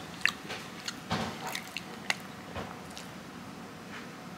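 A person chewing a bite of toasted, buttered bread: quiet wet mouth sounds and lip smacks, with a few small scattered clicks.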